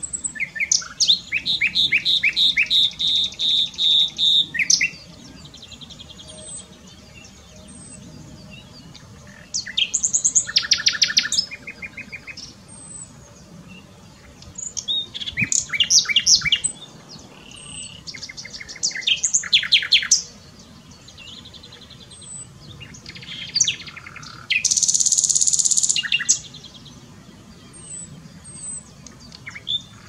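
Common nightingale singing: about four separate phrases of rapid repeated whistled notes and trills, with pauses of a few seconds between them.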